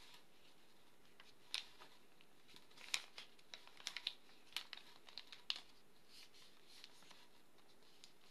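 Lined notebook paper being folded and creased by hand: a scatter of faint, sharp paper crackles and rustles, bunched in the middle few seconds.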